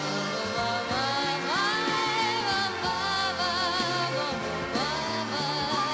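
A 1971 Italian pop song playing: a melody with vibrato and gliding notes over a steady bass line.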